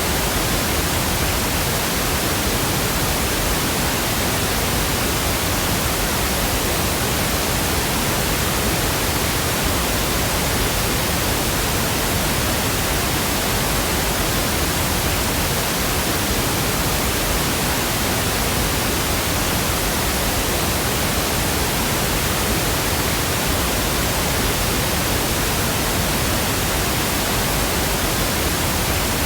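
Steady pink noise: an even, unchanging hiss spread from deep to high pitches, with no events or variation.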